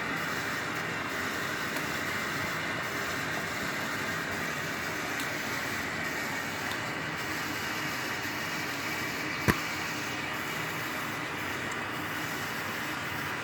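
Ariston Margherita washing machine running at the start of a cottons 60° wash: a steady noise, with one sharp click about nine and a half seconds in.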